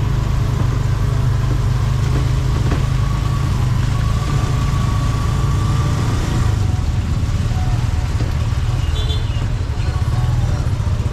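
Steady low drone of the engine of the vehicle being ridden in, moving along a rain-soaked street, with an even hiss of tyres on the wet road.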